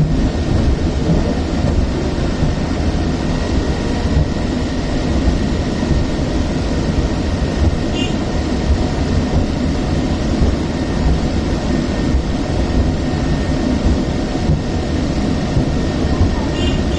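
Fifth-generation Hong Kong Peak Tram funicular car running along its track, heard from inside the cabin: a steady low rumble with a faint steady high whine.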